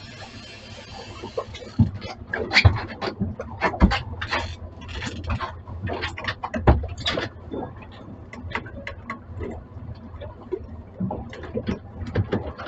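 Irregular clatter of knocks and taps, starting about two seconds in, over a steady low rumble.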